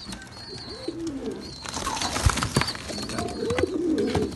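Domestic pigeons cooing, low coos that rise and fall, about a second in and again near the end. About two seconds in, a few sharp knocks and rustling of movement in the loft.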